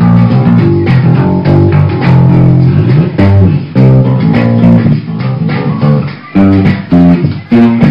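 Electric bass guitar, a Crate bass fitted with Peavey pickups, played as a bass line of plucked notes, some held and some short, with brief breaks between phrases.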